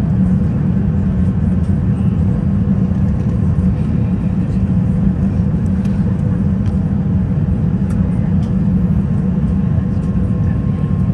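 Steady cabin noise of an Airbus A380 in flight: a low, even rumble of engines and rushing air, with a faint steady hum above it.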